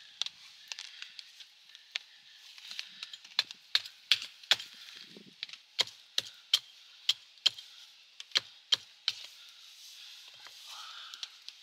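Wood being chopped or struck: a run of sharp knocks, irregular and a few a second, loudest through the middle.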